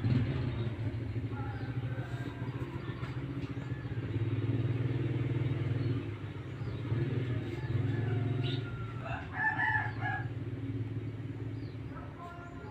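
A rooster crowing once, about nine seconds in, over a steady low engine hum that swells and fades, with small birds chirping.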